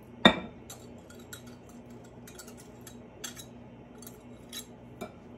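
A glass measuring cup clinks sharply once against the rim of a glass mixing bowl, followed by a few light taps and clicks as chopped rhubarb is tipped into the custard. A faint low hum runs underneath.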